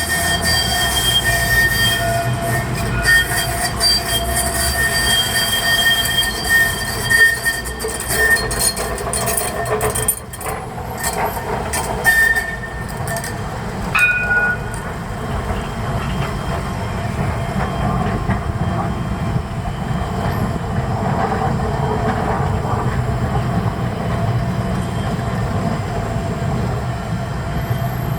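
Tram running on its rails, its steel wheels squealing in high steady tones through the first half, with scattered clicks and knocks.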